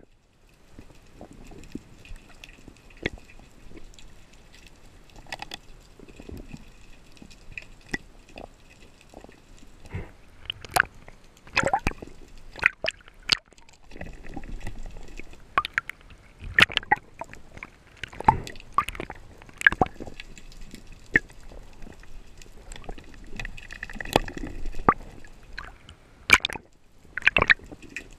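Irregular sharp underwater clicks and knocks as a Pathos Open Laser 120 speargun is handled and reloaded, heard muffled through a GoPro housing with faint water gurgling. The clicks come thicker from about a third of the way in.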